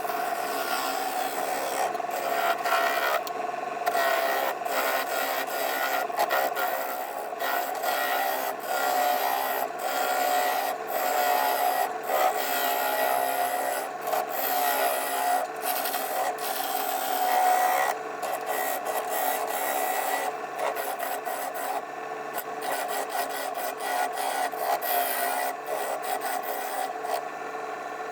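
Wood lathe spinning a wet, freshly cut log between centres while a turning tool cuts the outside round: a continuous rough scraping over a steady hum, with irregular surges as the tool bites.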